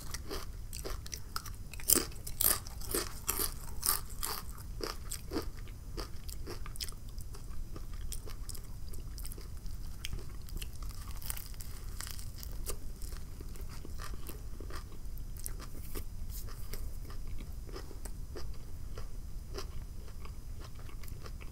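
Close-up mouth sounds of eating: crunching a kettle-style jalapeño cheddar potato chip, loudest about two to five seconds in, then steady chewing of a mouthful of toasted sub sandwich.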